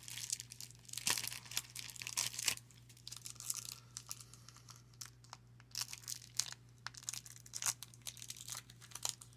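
1996 Pinnacle Sportflix baseball cards being handled and flipped through. Dense crinkling and rustling for the first couple of seconds, then scattered light flicks and clicks as cards are slid and turned.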